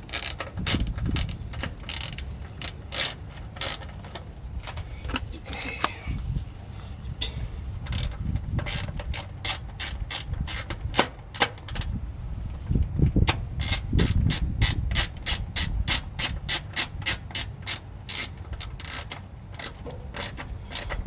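Ratcheting hand tool clicking as screws are driven to mount a hard start kit relay in an AC unit. Irregular clicks at first, then quicker runs of about four or five clicks a second in the second half.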